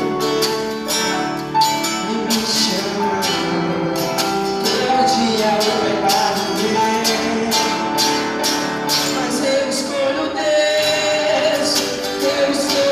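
Live gospel band playing a song, with singing and guitar over a steady beat.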